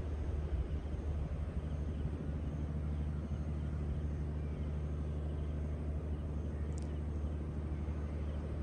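Steady low rumble and hum of outdoor airfield ambience, with a few faint high chirps and a brief high squeak about seven seconds in.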